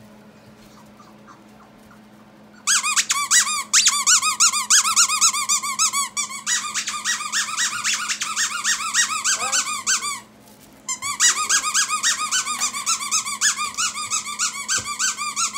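Squeaky dog toy squeezed rapidly over and over, a fast run of high squeaks that starts about three seconds in, breaks off briefly around ten seconds, then resumes. Faint puppy whimpers are heard once near the middle.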